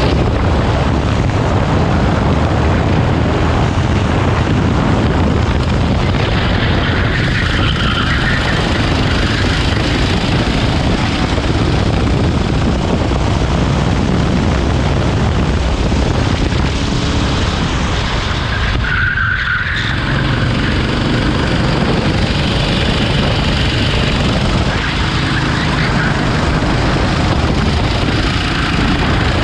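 Rental kart engine running hard through a racing lap, recorded onboard, with a brief dip in the sound about 19 seconds in.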